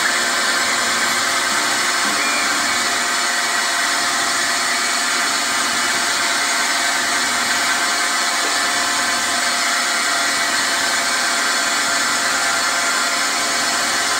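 Milling machine spindle running at a steady speed, turning a wiggler edge finder: a constant motor-and-drive hum with several steady tones over a hiss.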